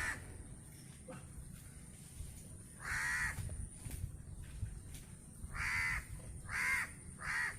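A crow cawing about five times: one caw at the start, one about three seconds in, and three in quick succession near the end.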